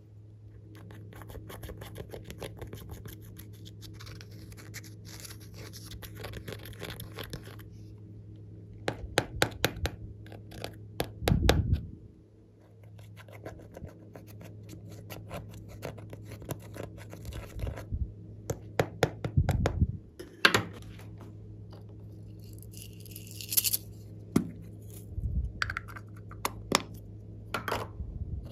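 A small metal tool scraping and scratching pressed eyeshadow and blush powder out of the pans of a plastic makeup palette, with stretches of fine scratching broken by sharp clicks and taps of the tool against the pans.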